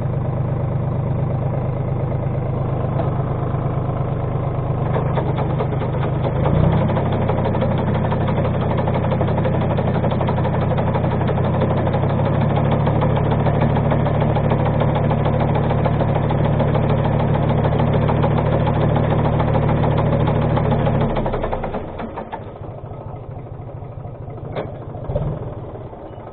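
Tractor engine running a walnut tree shaker. It steps up in speed about a quarter of the way in, rises again a little later and holds steady, then drops back to a quieter idle with a couple of brief knocks near the end.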